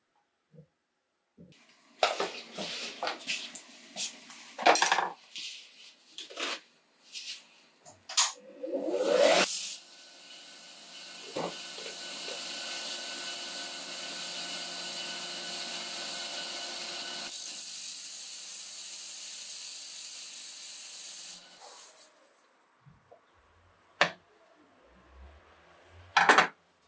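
Workshop clatter of tools and wood knocked and scraped on a bench, then a power tool running steadily for about eleven seconds, then two sharp knocks near the end.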